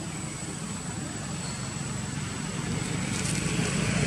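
A motor engine running, a low hum that grows louder toward the end as it comes closer.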